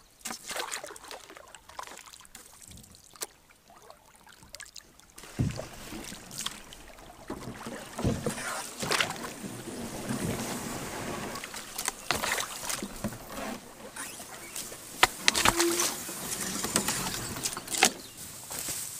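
Canoe being paddled up a narrow, reedy creek: paddle strokes and water splashing, with irregular knocks against the hull. Quieter for the first few seconds, then busier.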